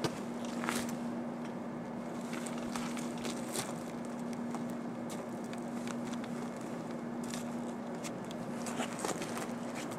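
Footsteps crunching irregularly on loose rock and gravel, over a steady hum.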